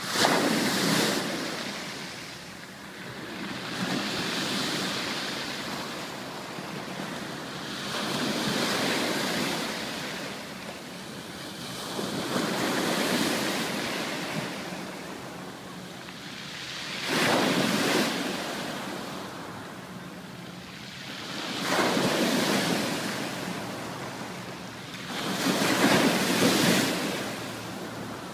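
Ocean waves breaking and washing up on a beach, one surge about every four to five seconds.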